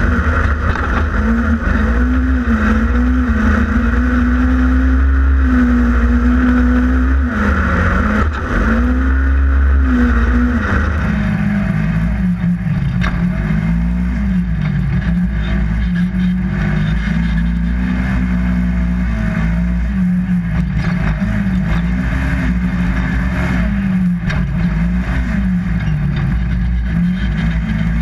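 Polaris RZR XP 1000 side-by-side's twin-cylinder engine under racing throttle, its pitch repeatedly climbing and dropping as the throttle is opened and lifted, with a heavy low rumble throughout.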